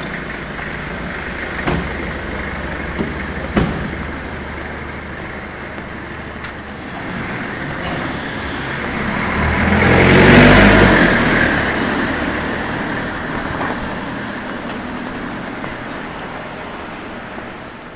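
Street traffic: a car drives past close by, its sound swelling to a peak about ten seconds in and then fading away. A few sharp knocks come in the first four seconds.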